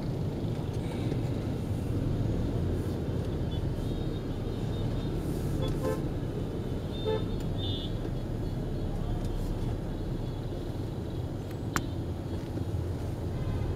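Rush-hour city traffic heard from inside a taxi's cabin: a steady low rumble of engines and road, with several short horn beeps about halfway through and a single sharp click near the end.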